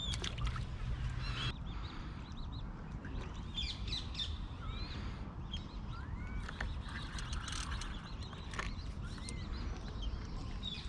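Several wild birds singing and calling, with short chirps and whistles throughout, over a steady low rumble.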